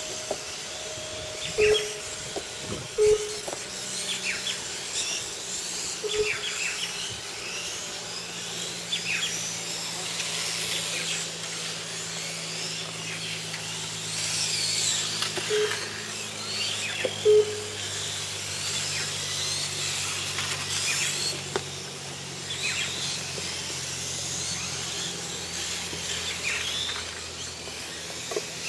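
Several electric 1/8-scale RC motorcycles race past, their motors whining and rising and falling in pitch as they speed up and slow down through the corners. Short beeps at one pitch cut in a few times and are the loudest sounds.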